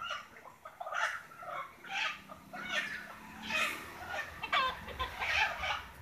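Mixed backyard poultry, mostly helmeted guinea fowl with chickens, calling with short harsh clucks, repeated about once a second.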